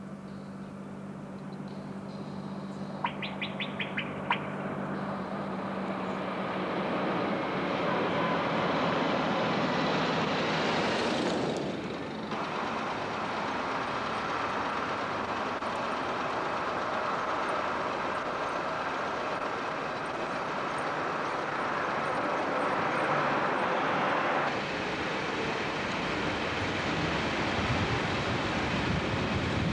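Street traffic noise, with a vehicle passing close about eleven seconds in. There are a few short chirps around three to four seconds in and a low hum at the start.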